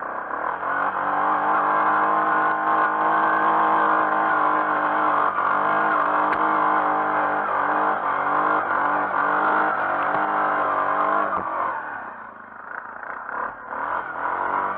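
Yamaha Grizzly 450 ATV's single-cylinder four-stroke engine pulling under throttle across rough grass, its pitch wavering with the terrain. About twelve seconds in the throttle drops off briefly, then the engine picks up again with a rising pitch.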